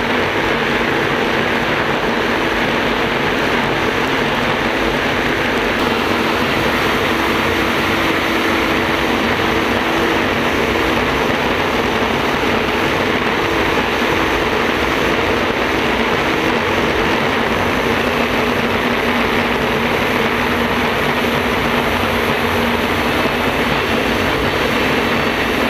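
Gas turbine engine of a racing jet boat running at speed: a steady, loud rush of engine and wind noise with no letup.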